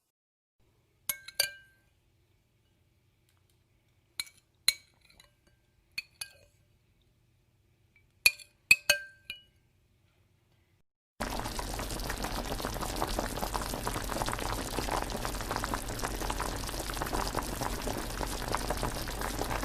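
Glass clinking: short, clear ringing clinks in small groups of two or three, with silence between. About eleven seconds in, a steady crackling hiss of bubbling liquid starts abruptly.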